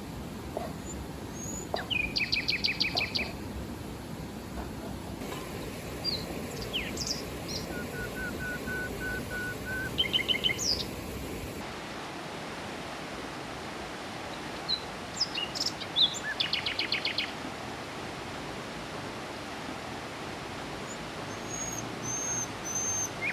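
Wild birds calling in quick runs of repeated notes, with one run of about six evenly spaced whistled notes, over a steady rushing of river water.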